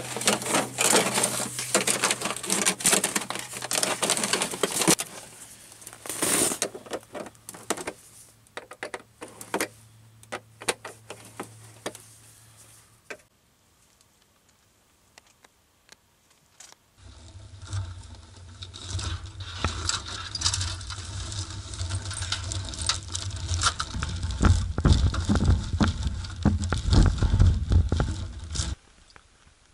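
Tin soup can, metal hose clamps and steel stovepipe being handled and fitted together: busy metallic rattling, scraping and clinking that thins to scattered clicks and then goes quiet. A little over halfway in, a low rumble with many crackles starts suddenly and cuts off shortly before the end.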